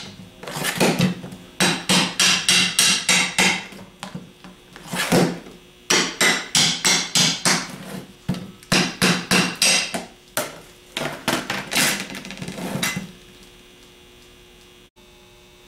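Ball-peen hammer repeatedly striking the aluminium case of a Ford 6G alternator to knock the rear housing loose and split the case. The blows come in quick runs of up to about four a second, with short pauses, and stop about thirteen seconds in.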